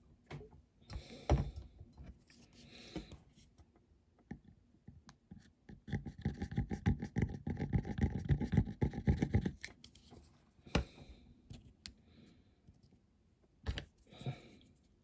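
A fingertip rubbing a small plate down onto a die-cast toy car body: a few seconds of rapid scratchy rubbing with a faint squeak, in the middle. Scattered clicks and taps of the model being handled come before and after.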